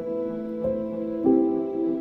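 Instrumental background music: held chords that shift to new notes twice.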